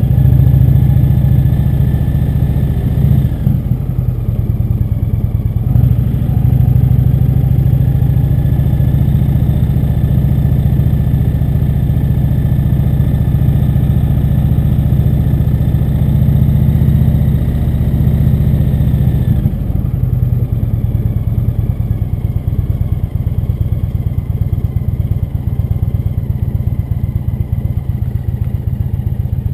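Indian V-twin motorcycle engine running under way, heard from the rider's seat. Its note shifts twice in the first six seconds. About two-thirds of the way through it drops to a quieter, slower, pulsing beat.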